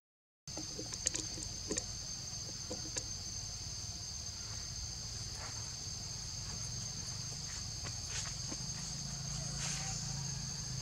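Insects droning steadily at a high pitch, with a few faint scattered clicks and rustles. The sound drops out for about half a second at the very start.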